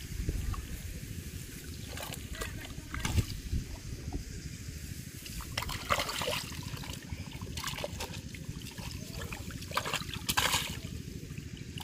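Hands splashing and sloshing in shallow, muddy ditch water while grabbing for fish, in irregular bursts over a steady low rumble; the longest splashing comes near the end.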